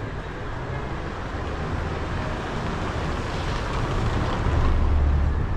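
A car driving slowly up a narrow stone-paved street and passing close by: engine and tyre noise on the paving grow louder as it approaches and are loudest near the end.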